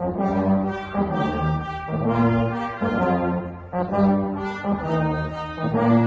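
A small Guggenmusik brass group playing a tune, with a sousaphone carrying the bass under trumpets. The notes are held and change every half second to a second, with short breaks between phrases.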